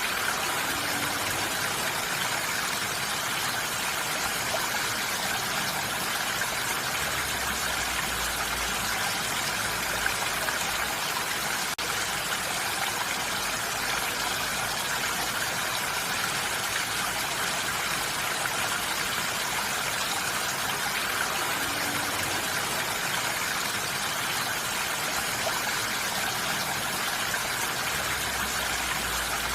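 Steady rain falling on a roof, heard from indoors as an even hiss, with a faint low rumble that rises and fades twice.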